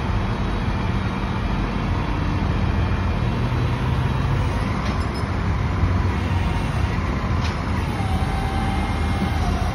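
Rollback tow truck's engine running steadily to drive the bed hydraulics as the flatbed carrying the pickup is lowered level. A faint whine dips in pitch and comes back near the end, and there are two light clicks.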